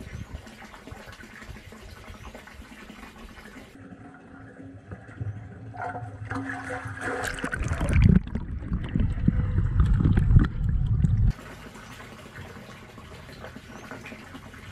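Muddy water gushing out through a drain hole in a concrete koi-pond filter chamber as it is drained, splashing and churning close by. The rush builds from about five seconds in and stops abruptly about eleven seconds in.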